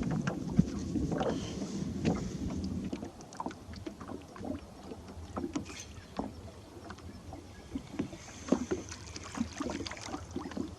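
Water lapping against a small fishing boat, with scattered light knocks and clicks from handling gear in the boat.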